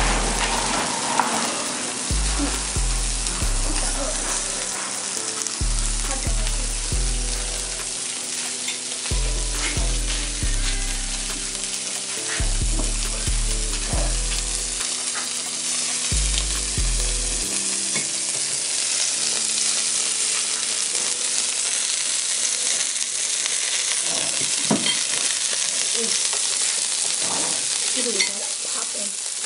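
Food frying and sizzling in a pan with a steady hiss, with occasional clicks of stirring. A deep, stepped bass line of music plays under it for about the first seventeen seconds, then stops.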